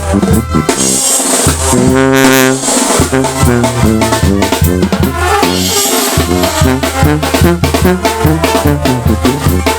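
Sinaloan brass band (banda) playing: trombones and trumpets over a pulsing bass line and drums, with a long held brass chord about two seconds in.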